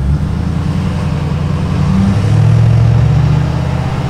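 Car engine running as the vehicle drives, with road noise; it gets a little louder past the halfway point.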